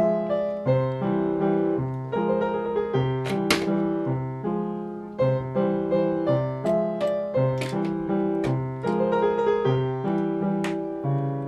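Background piano music, a light melody of notes played in a steady, even rhythm, with a few sharp clicks over it.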